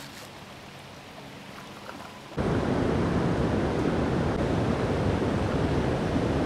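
Loud, steady rushing of creek water that starts suddenly about two seconds in, after a fairly quiet opening.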